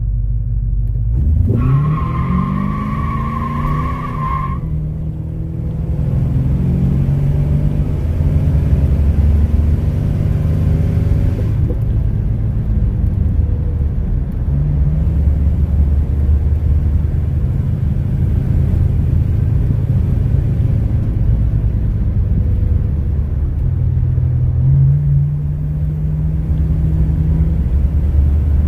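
Car engine revving up as the vehicle pulls away from a stop, with a high-pitched squeal for about three seconds at the start, then running steadily at road speed with tyre and road noise.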